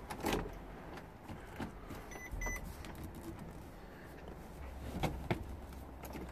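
Quiet car cabin with a low hum and a few faint clicks of handling at the dashboard and steering column. Two short, faint high beeps come about two seconds in.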